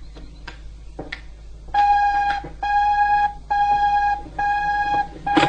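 Telephone ringing with a steady electronic buzzing tone in about five evenly spaced pulses, each under a second long, starting about a second and a half in. A few faint knocks come before the ringing.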